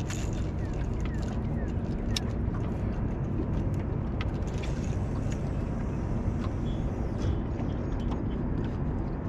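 Boat motor running steadily as the boat moves on the river, with an even low rumble and a few faint ticks on top.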